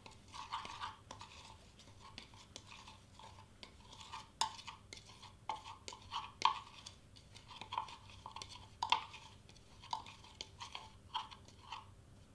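A small spoon stirring and scraping flock powder inside a small glass jar: irregular gritty scraping strokes with sharper clicks of the spoon against the glass here and there.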